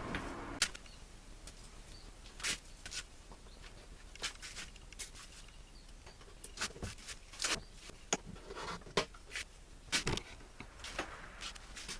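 Scattered light clicks and knocks at irregular intervals over a faint steady background.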